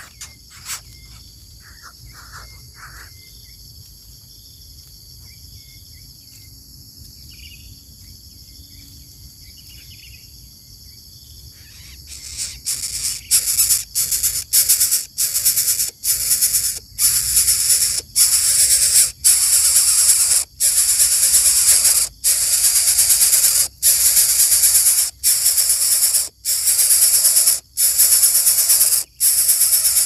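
Greater coucal nestlings hissing, a loud, raspy rush of sound repeated over and over with brief breaks at an uneven pace. It starts about twelve seconds in, after a quieter stretch with a few faint high calls.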